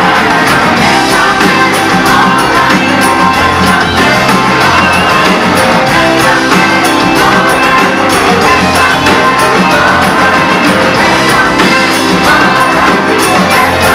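Live soul-rock band with saxophone and a large group of singers performing, the singers singing together with shouts over a steady drum beat.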